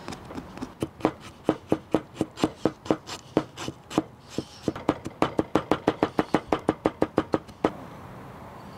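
Shun chef's knife chopping fresh ginger on a cutting board: a run of sharp knocks of the blade on the board. They are spaced and uneven at first, then quicken to about five a second from about halfway, and stop shortly before the end.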